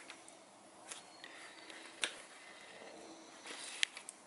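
Quiet workshop handling of tools, with a few light clicks about a second apart, and a faint electronic tone lasting under a second, about a second in, as a digital torque wrench is handled.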